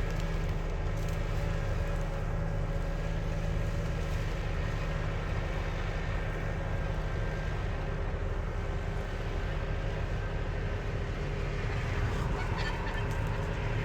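Tractor running steadily, with the transmission giving off a steady gear sound above the low engine hum; some light rattling comes in near the end.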